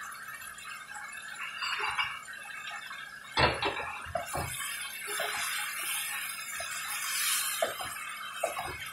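Pork, onions, tomatoes and bagoong simmering and sizzling in a nonstick pan with a steady hiss. A little over three seconds in, a serving spoon knocks against the pan, then stirs and scrapes through the mixture with several light clicks.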